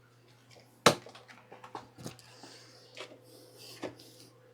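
Hard knocks from a motorcycle rear wheel and axle being worked into the swingarm: one sharp knock about a second in, then a few lighter knocks and clicks.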